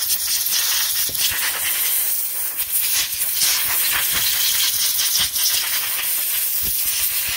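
Compressed-air blowgun hissing steadily as it blows sawdust and oily grime out of an Echo CS-310 chainsaw's plastic chain cover, with a few dull thumps.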